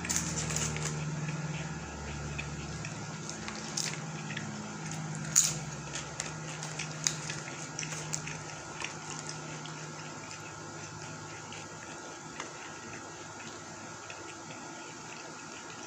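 Close-miked mouth sounds of a person eating fajita nachos: wet chewing with sharp tortilla-chip crunches scattered through the first half, the loudest about five seconds in, then quieter chewing.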